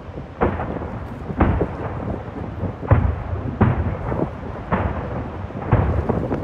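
Distant fireworks shells bursting: about six booms, each trailing off in a rumble.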